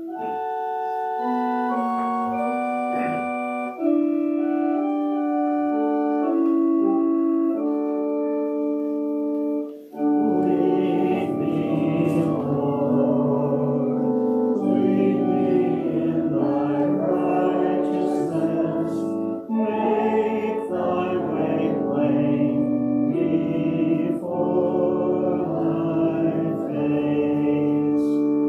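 Organ playing slow, held chords. About ten seconds in, the music swells into a fuller, denser passage.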